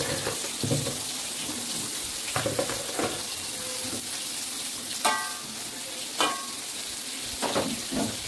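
Eggplant pieces sizzling in hot oil in an aluminium wok, with a metal spatula knocking and scraping against the wok several times as the pieces are turned, a few of the knocks leaving a short metallic ring.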